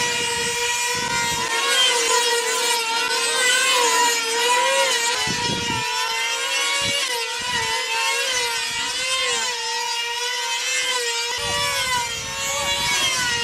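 Small 2.5 cc model engines on control-line combat planes running flat out as the planes circle. Their high whine wavers steadily up and down in pitch as the planes swoop and pass.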